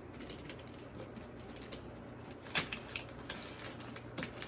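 Gift wrap and tissue paper rustling and crinkling in a child's hands as a present is unwrapped, in small irregular crackles with one sharper crackle about halfway through.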